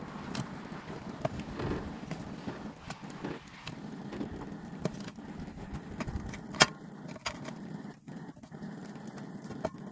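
Freshly cast molten metal cooling and setting in a sand mould, giving scattered irregular crackles and ticks over a low background hiss, with one sharp click about two-thirds of the way through.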